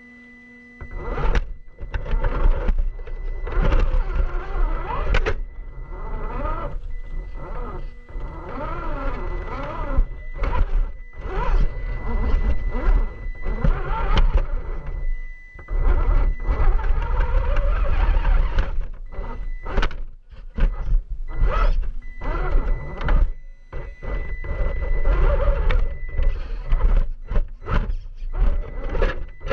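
The electric motor and gears of a radio-controlled Axial SCX10 II crawler whine, rising and falling in pitch with the throttle, over a steady high tone. The crawler's chassis and tyres knock and scrape on concrete rubble, and the sound is heard from the crawler's own on-board camera.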